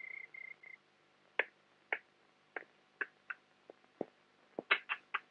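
A steady high tone that breaks up into short beeps and stops within the first second, then scattered light clicks and taps, about a dozen in all, coming closest together near the end.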